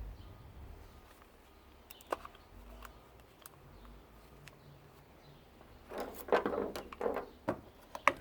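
Parts of an electric weed trimmer being handled: a few faint clicks, then about six seconds in a cluster of clattering knocks and rustles.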